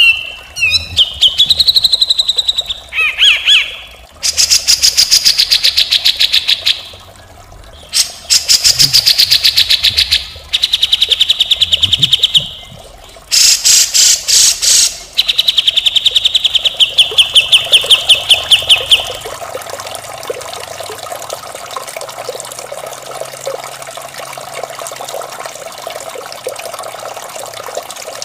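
Grey-cheeked bulbul (cucak jenggot) singing harsh, rattling trills in several bouts, each a fast train of repeated notes, opening with a few whistled glides. About two-thirds of the way through the song stops and a steady trickle of running water takes over.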